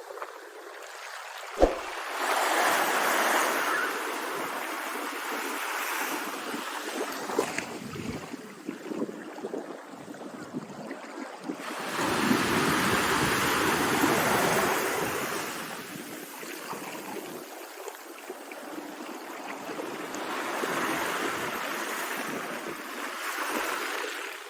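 Sea waves rolling in, with the wash of water swelling up loudly three times, roughly every nine seconds. A single sharp knock comes about a second and a half in.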